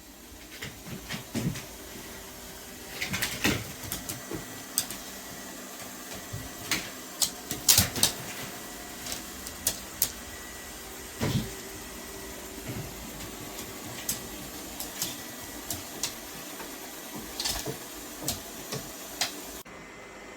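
Irregular clicks and knocks, a couple of dozen of them and loudest about halfway through, over a steady background hum with a faint high tone.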